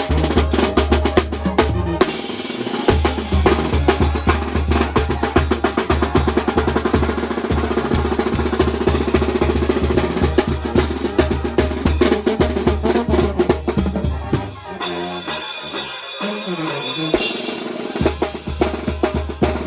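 Drum kit playing a steady, driving beat with snare hits and rolls, together with band music. About three-quarters of the way through, the low kick-and-bass pulse drops out for a few seconds, then the full beat comes back.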